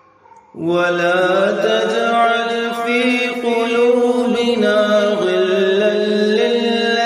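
Solo voice chanting Quranic recitation (tilawah) in long, slowly gliding melodic notes, taking up again after a short breath pause about half a second in.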